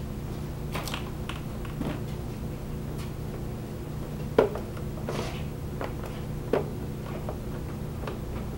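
Scattered small clicks and knocks of hands and tools working at a scooter's plastic body panels and their screws, with two sharper knocks about halfway through and again two seconds later, over a steady low hum.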